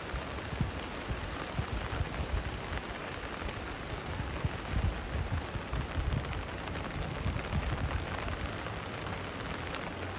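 Steady hiss of heavy rain and a flooded river's rushing water, with irregular low rumbles underneath.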